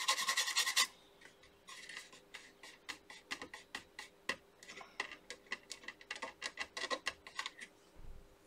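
Cloth and fingertip rubbing and scratching across a circuit board's surface over a patch of UV solder mask: a short dense rub at the start, then many quick short strokes for several seconds, and a soft low thump near the end.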